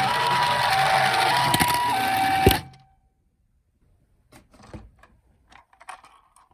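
Toy ambulance's electronic two-tone hi-lo siren in the Japanese 'pii-poo' pattern, over a loud rough rattling noise, cut off with a sharp click about two and a half seconds in. A few light plastic clicks and knocks follow near the end.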